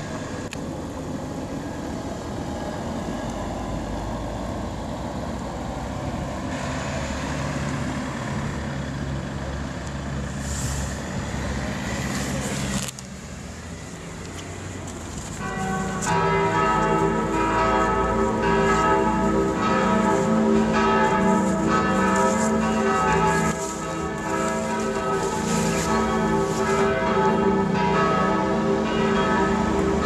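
A rooftop civil-defence siren sounding during a siren test; its tone dies away and stops about 13 seconds in. About 15 seconds in, the four-bell peal of the parish church (c', e', g', a', cast by Oberascher in 1948) starts ringing and carries on to the end.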